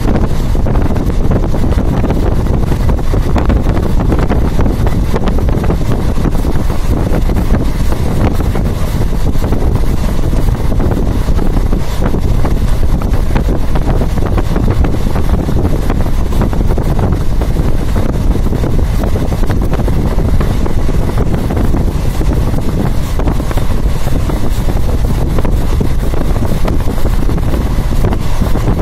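Loud, steady wind buffeting a phone microphone held at an open window of a moving train, over the train's running noise.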